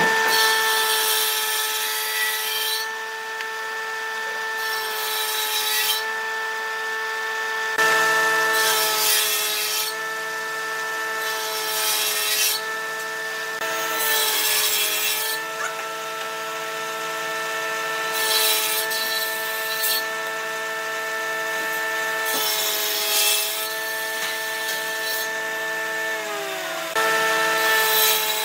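Table saw running with a steady whine while its blade makes repeated short cuts into a wooden block, a row of slots for a joint. Each pass is a burst of sawing noise about every three to four seconds, about eight in all.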